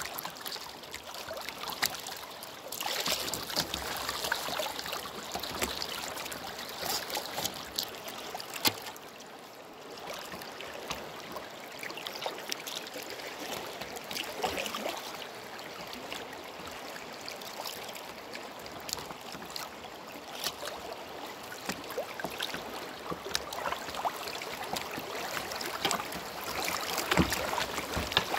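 Glacial river running over a shallow rocky riffle: a steady rush of water with many small close splashes and trickles. It turns briefly quieter about ten seconds in.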